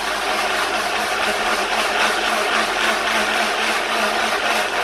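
Small electric blender running steadily at full speed, grinding chilli, shallot, candlenut and ginger with a little water into a wet spice paste.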